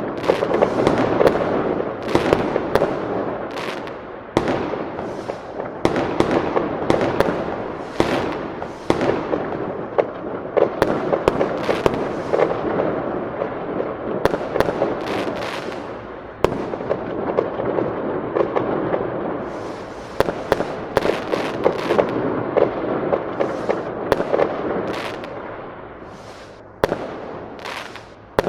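Large fireworks display: a dense, continuous barrage of bursting shells and crackling, with many sharp bangs. The din swells and fades in waves, with new volleys coming in suddenly about 4, 8, 16 and 27 seconds in.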